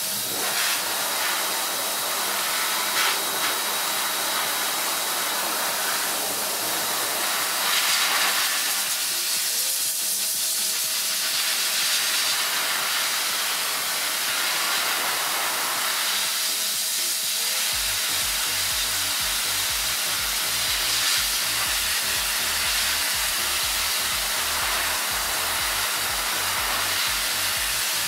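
A Metro Air Force Master Blaster high-velocity dog dryer runs with a steady, loud rush of air, very noisy, as it blasts water out of a standard poodle's wet coat.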